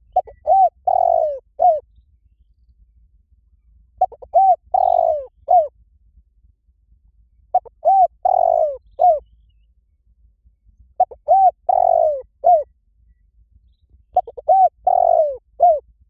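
Spotted dove cooing: five calls about three and a half seconds apart, each a short phrase of four or five arched coos with one longer coo in the middle.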